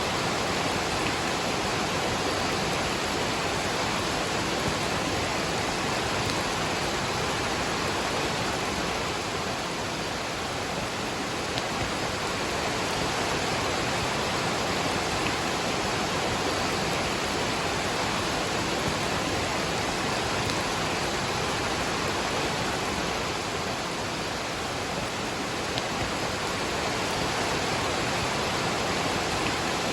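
A waterfall rushing steadily together with falling rain: an even, unbroken hiss that dips slightly in level twice.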